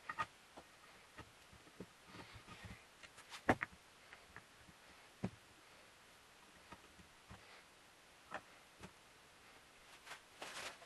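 Scattered light knocks and clicks of wooden pieces and hand tools being handled on a workbench, the sharpest about three and a half seconds in. A brief rubbing scrape follows near the end.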